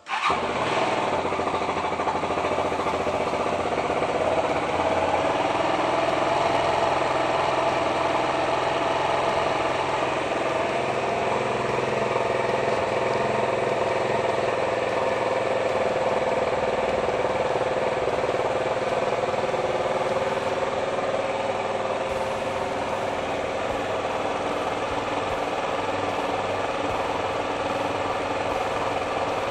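Racer Panther motorcycle engine starting cold for the first time on its newly fitted carburetor with accelerator pump: it catches suddenly and then runs steadily at idle.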